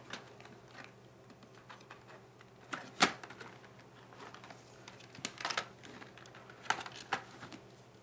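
Scattered plastic clicks and knocks of a laptop casing being handled and turned over. The loudest is a sharp knock about three seconds in, with a few more clicks in the second half.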